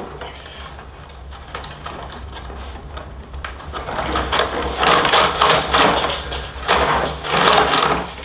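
Rawhide lacing being pulled and dragged through a bison-skin frame drum as it is taken apart: a run of dry scraping rasps that start about halfway through, over a steady low hum.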